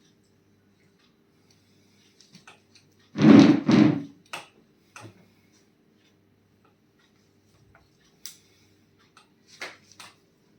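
Two loud knocks in quick succession about three seconds in, followed by a few scattered faint clicks.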